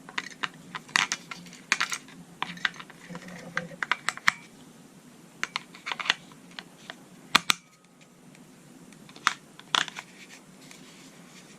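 AA batteries being fitted into a plastic battery compartment: irregular sharp clicks and light knocks, with a cluster of louder clicks a little past the middle.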